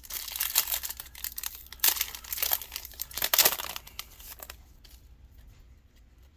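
Foil Yu-Gi-Oh booster pack wrapper being torn open and crinkled, a dense crackling for about four and a half seconds, loudest near the middle, then it stops.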